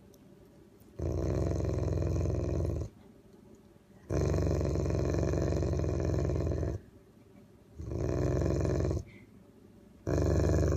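Large bulldog-type dog making a deep, rough noise in four long bursts of one to nearly three seconds each, with pauses of about a second between them.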